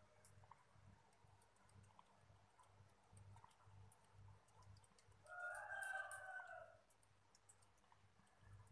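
Cat lapping milk from a bowl: faint, quick wet clicks. About five seconds in, a single drawn-out call, held at one pitch for about a second and a half, is louder than the lapping.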